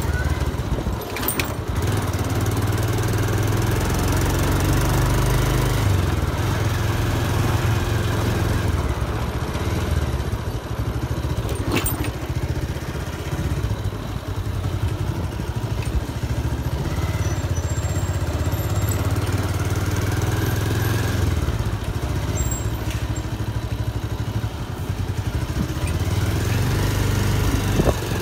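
A motorcycle engine running as the bike is ridden along, its low note swelling and easing a few times with the throttle.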